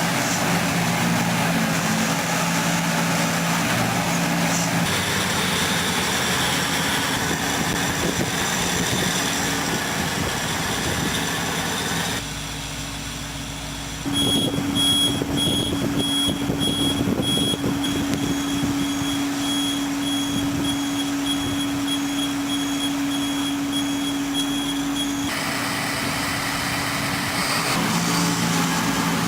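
Heavy construction machinery running, heard in a series of short clips that change abruptly. Through the middle there is a steady hum with a repeating high-pitched beep.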